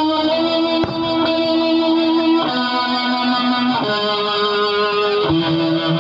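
Music led by sustained electric guitar chords, the held notes changing every second or so.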